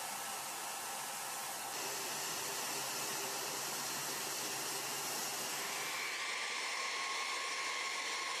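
Steady rushing noise of jet engines. About six seconds in, the sound changes and a steady whine joins the rush.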